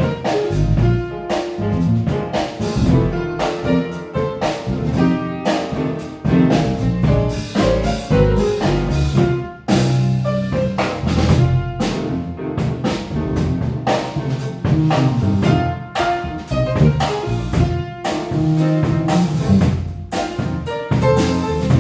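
Jazz trio of piano, bass and drum kit playing a piece live.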